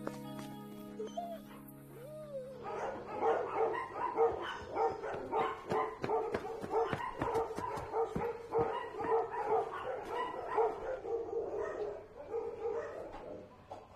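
Many kennelled dogs barking at once, a dense overlapping chorus that breaks out about two and a half seconds in and thins a little near the end. Held music notes come before it.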